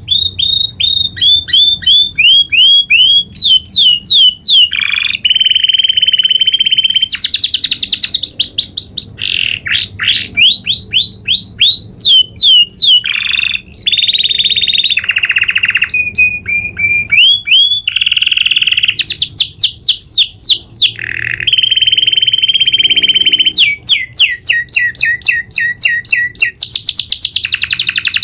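Domestic canary singing a long unbroken rolling song: rapid trills, runs of quick falling whistled sweeps and held buzzy notes, each phrase repeated fast and switching to a new one every second or two.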